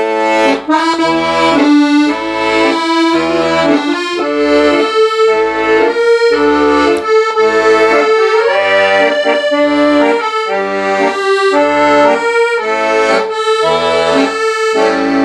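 Solo accordion playing a trot melody with long held right-hand notes over a steady oom-pah left-hand accompaniment of alternating bass notes and chords, played loudly for the song's climax.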